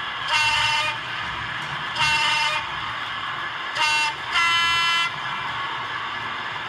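Sound-fitted model diesel locomotive's horn sounding four blasts: three short toots on one note, then a longer blast on a second, different note, as from a two-tone horn.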